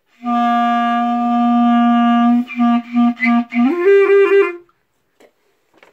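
Clarinet playing a long held low note for about two seconds, then a few short tongued notes on the same pitch, stepping up to a higher note for a few more short notes before stopping.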